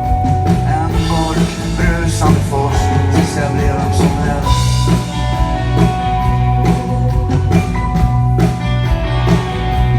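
A rock band playing an instrumental passage: electric guitars, bass and a drum kit keeping a steady beat.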